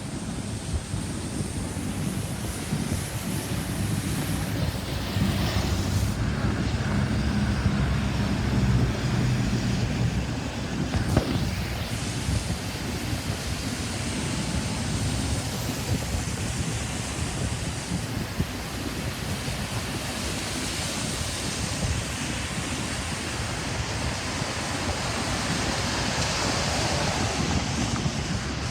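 Road traffic noise, a steady rush of passing vehicles with wind on the microphone; a louder vehicle goes by between about five and ten seconds in.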